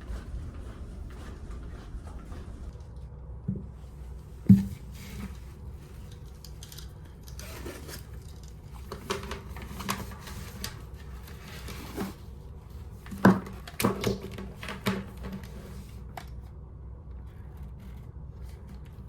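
Steady low hum of a ferry under way, with scattered knocks, clicks and scraping from objects being handled. The loudest knocks come about four and a half and thirteen seconds in.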